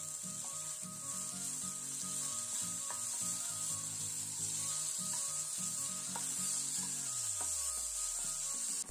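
Capsicum strips and green chillies sizzling in hot oil in a frying pan as a spoon stirs them, rubbing and scraping against the pan. The sizzle is a steady hiss with a few light clicks.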